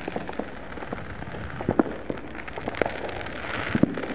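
Distant fireworks and firecrackers going off across a town: an irregular scatter of pops and bangs over a faint hiss, with a few louder bangs in the second half.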